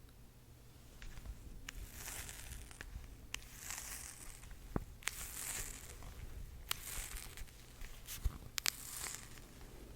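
Close-miked ASMR trigger sounds: crackling, peeling bursts of noise with several sharp clicks, starting about a second in.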